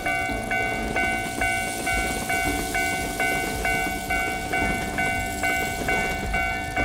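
Japanese level-crossing warning bell ringing over and over, a little over two rings a second, with the low rumble of a train underneath.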